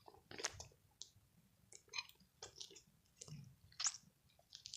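Homemade slime mixed with soap being squeezed and kneaded by hand, giving faint, irregular wet clicks and squelches.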